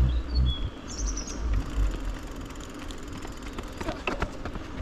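Low wind rumble on the microphone while riding a mountain bike, with a few short, high bird chirps in the first second and a half. A faint, fast high ticking follows, and a few sharp clicks come near the end.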